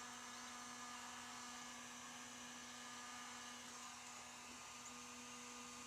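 Electric heat gun running steadily as it heats a PVC pipe wall to soften it: a faint, even motor hum with a hiss of blown air.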